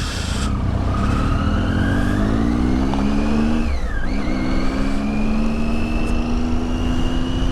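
Triumph Tiger's three-cylinder engine accelerating: the revs rise, drop sharply with an upshift about four seconds in, then climb again more slowly in the next gear, over a steady low wind rumble.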